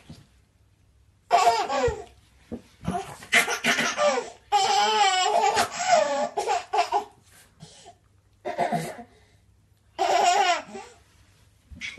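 A baby laughing in several bursts with short pauses between them.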